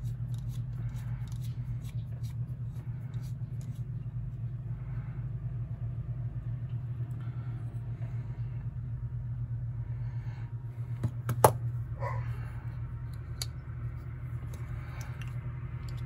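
Faint clicks and scrapes of a small driver working a knife's handle-scale screw that won't catch its threads, with one sharp click about eleven seconds in, over a steady low hum.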